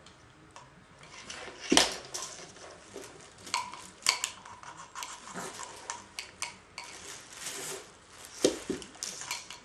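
Plastic stacking cups and toys knocking and clattering together as a baby handles them: a run of irregular clicks and knocks, the loudest about two seconds in.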